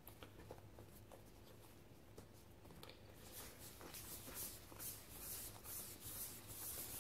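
Hand rounding a ball of bread dough on a countertop. Faint rubbing and swishing of dough and palm against the surface, becoming a rhythmic run of about two to three strokes a second from about three seconds in.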